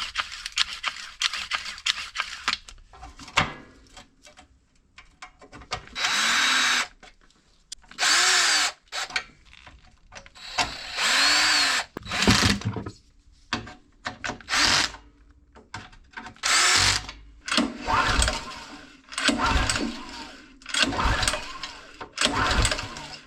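Cordless drill-driver run in about eight short bursts, each speeding up and slowing down. Clicks and knocks of handling come before the first burst.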